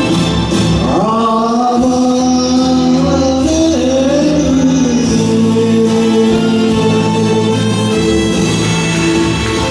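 Enka-style karaoke backing track playing the song's closing bars. A long, wavering melody note glides up about a second in and is held over sustained chords.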